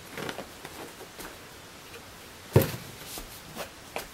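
Light clicks and handling rustles, then, about two and a half seconds in, a single sharp knock as a plastic bottle of oil is set down on a tiled floor.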